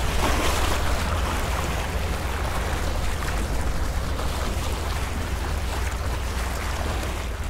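Water rushing past the hull of a 30-foot sailboat sailing at about 6.5 knots, with wind blowing on the microphone as a steady low rumble.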